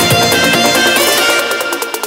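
Electronic background music. The kick drum and bass drop away in the first second, and in the second half a build-up of rapid repeated hits begins.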